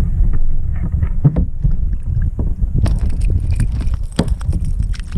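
Wind buffeting the microphone on a kayak, and from about three seconds in a hooked ladyfish leaping and thrashing at the surface beside the boat, a quick run of sharp splashes and slaps.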